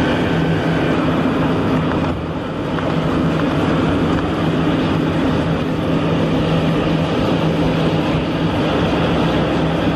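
Steady engine drone with a low hum as an aircraft tow tractor pulls a Boeing 787-8 by its nose gear, dipping briefly about two seconds in.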